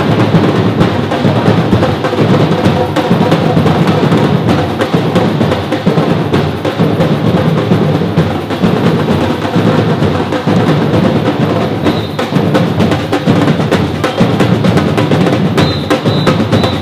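A Brazilian drum ensemble playing a dense, driving batuque-style rhythm, with deep bass drums under rapid snare-like strokes.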